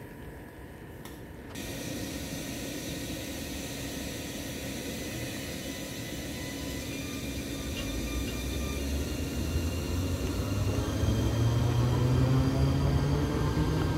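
EJ575 double-deck electric multiple unit pulling away: a steady hum that steps up about a second and a half in, then from about eight seconds a growing rumble of wheels on rail and a rising motor whine as the train gathers speed.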